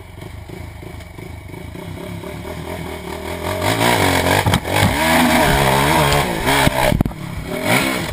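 Honda TRX450R quad's single-cylinder four-stroke engine running at low revs, then revved hard from about three and a half seconds in, its pitch rising and wavering with the throttle as it climbs. Sharp knocks and clatter near the end as the quad crashes.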